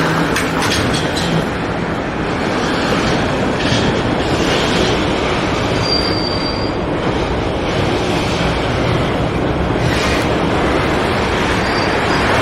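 Container freight train rolling past with a steady, loud rumble of wagons on the rails, a few clicks early on, and a brief high-pitched wheel squeal about six seconds in.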